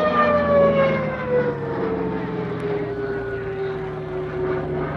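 CAC Boomerang fighter flying past with its distinctive whistle from the gun ports, a loud pitched whistle that slides steadily down in pitch as the aircraft passes, over the drone of its Pratt & Whitney R-1830 Twin Wasp radial engine.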